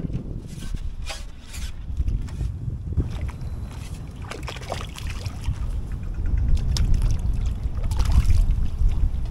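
Wind buffeting the microphone as an uneven low rumble, with scattered light clicks and knocks from handling.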